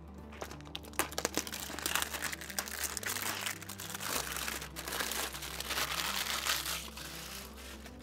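Plastic shrink-wrap being peeled off a clear plastic connector organiser case and crinkled in the hands: a dense crackling that starts about a second in and dies down near the end, over background music.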